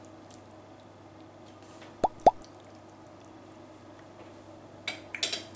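Two quick drip-like plops with a rising pitch, one right after the other, about two seconds in, then a brief crackly rustle near the end, over a low steady hum.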